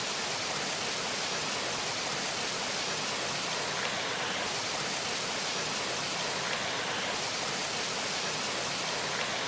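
Steady rushing of a mountain creek, an even hiss of flowing water.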